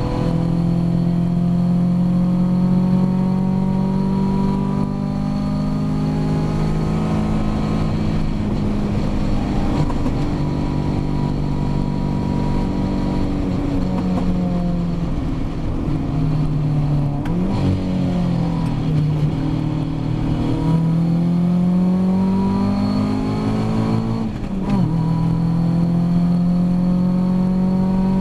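Ginetta G40 race car's engine heard from inside the car at racing speed, its note climbing steadily under acceleration. About ten, seventeen and twenty-four seconds in, the pitch drops sharply and then climbs again as the car slows and picks up.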